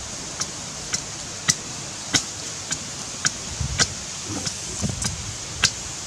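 A large blade chopping into wood with steady, sharp strokes, about two a second, some ten blows in all.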